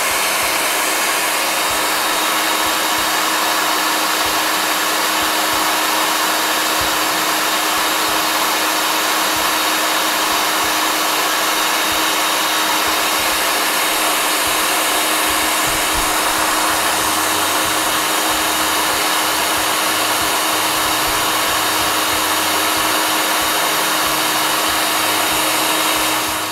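Electric food processor running steadily at full speed, whipping garlic, oil and lemon juice into an emulsified toum garlic sauce. It gives an even whir with a constant hum and cuts off abruptly at the very end.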